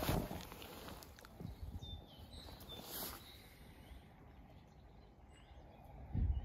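Quiet outdoor ambience with a few faint, short bird chirps about two to three seconds in. A sharp thump right at the start is the loudest sound, with a smaller knock about three seconds in and a low bump near the end.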